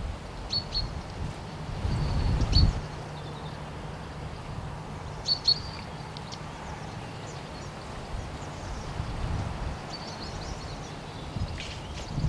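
Small birds chirping in short, high calls every second or two over a faint steady low hum, with a low rumble at the very start and another about two seconds in.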